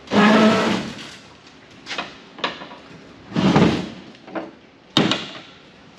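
Metal parts of a telecom equipment cabinet scraping, sliding and clunking as pieces are pulled out and handled, with a loud scrape at the start and a sharp click about five seconds in.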